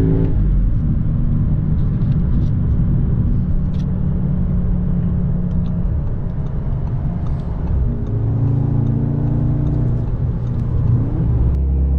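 Inside the cabin of a 2021 Audi S3 sedan at motorway speed: steady road and tyre rumble under the drone of its 2.0-litre turbocharged four-cylinder. The engine note fades just after the start and rises again about eight seconds in as the car picks up speed.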